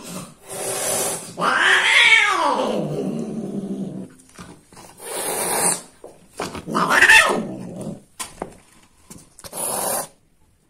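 Female cat caterwauling and growling at the end of mating: one long cry that rises and then sinks into a low growl, followed by a few short, sharp hisses.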